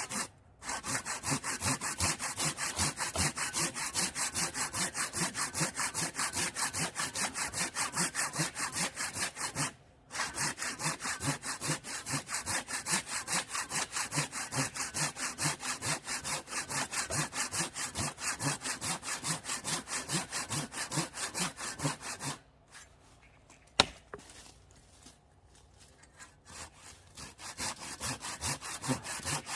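Hand saw cutting through an oak log in quick back-and-forth strokes, about three a second, with two brief pauses. About three-quarters of the way through the sawing stops, a single sharp knock sounds, and faint strokes start again near the end.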